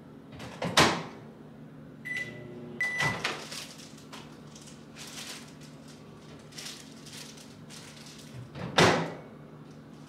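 Office microwave in use: the door shuts with a clunk about a second in, two short keypad beeps follow around two to three seconds, and another door clunk comes near the end, over a steady low hum.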